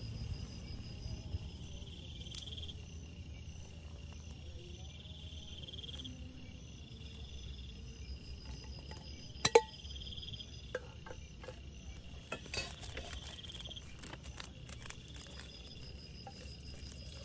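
Insects chirping in short trills that recur every few seconds, over a low steady hum. One sharp knock comes about halfway through, followed by scattered light clicks and taps.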